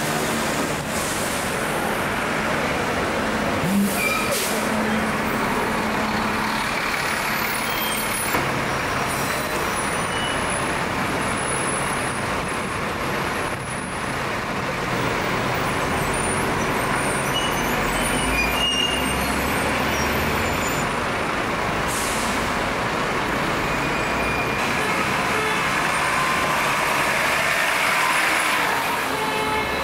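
Routemaster double-deck diesel buses running in street traffic as they pass close by, engines rumbling steadily, with short air-brake hisses about four seconds in and again around twenty-two seconds.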